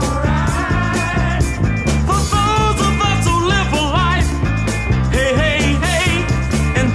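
Background music with a steady beat and a wavering lead melody sliding up and down in pitch.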